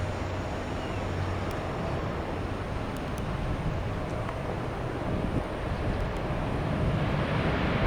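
Jet airliner engine noise, a steady broad rush that grows louder near the end.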